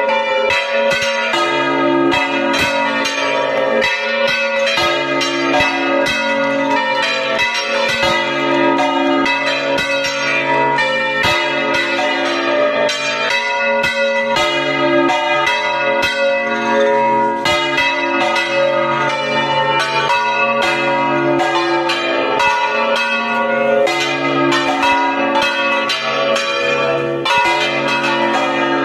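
Four church bells swung full circle by hand in the Spanish volteo style, all ringing at once in a dense, continuous clangour of overlapping strokes several times a second over their lingering tones.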